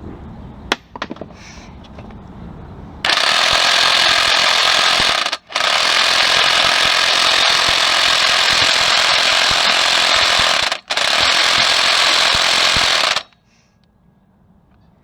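A power tool runs with a rapid hammering rattle in three runs of a few seconds each, with two brief stops between them, then cuts off. A few light metallic clicks come before it.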